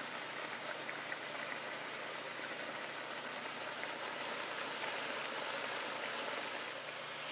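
Cubed chicken breast sizzling in a pan as its released water cooks off: a steady crackling hiss with small scattered pops.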